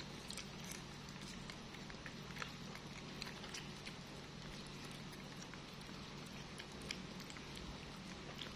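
A baby macaque chewing a slice of carrot: faint, small clicks and smacks at irregular intervals over a steady low hum.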